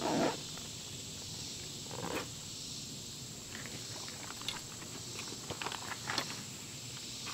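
Nylon backpack being handled and packed up: fabric rustles, a louder one right at the start and another about two seconds in, then a run of short clicks and scrapes near the middle, over a steady hiss of insects.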